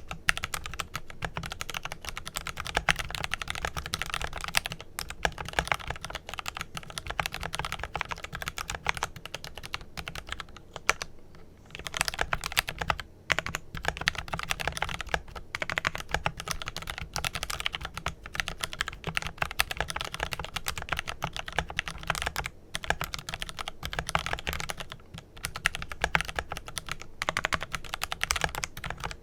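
Continuous fast typing on a Glorious GMMK Pro mechanical keyboard with lubed Kailh Pro Purple tactile switches and GPBT keycaps, foam-dampened. The keystrokes come in a dense clicking run, with a few brief pauses around 11 and 22 seconds in.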